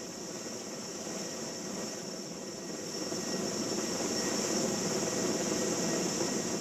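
Erickson S-64 Aircrane heavy-lift helicopter running, its twin turboshaft engines and rotor giving a steady high whine over a dense rumble that grows a little louder in the second half.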